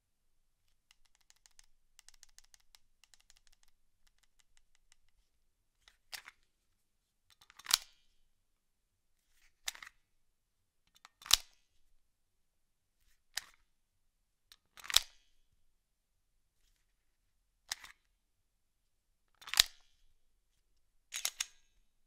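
Smith & Wesson M&P9 M2.0 pistol being handled: a faint patter of small ticks for a few seconds, then nine sharp mechanical clicks about every one and a half to two seconds, alternating softer and louder, in a small room.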